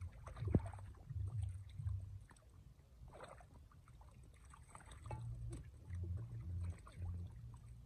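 Hands sloshing and splashing in shallow muddy water while grabbing for fish, in small irregular splashes, with a sharp thump about half a second in and a brief fuller splash about three seconds in.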